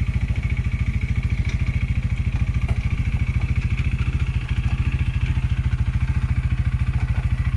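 UTV engine idling steadily with an even, rapid low pulse, and a steady high whine over it.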